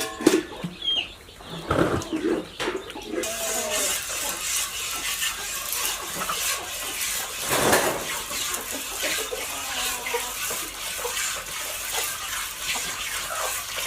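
Water running and splashing in a steady rush that starts about three seconds in, with scattered small knocks. Before it come a couple of knocks and short clucking calls from hens.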